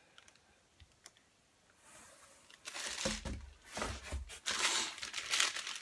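Plastic bags crinkling and rustling as hands rummage through bagged items in a cardboard box, with a few light handling bumps. It is quiet at first, and the rustling starts about halfway through.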